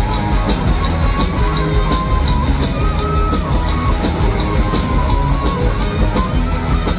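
Live rock band playing loudly through a concert PA: electric guitars, bass and drums with a steady, evenly spaced percussion beat and a held melody line on top.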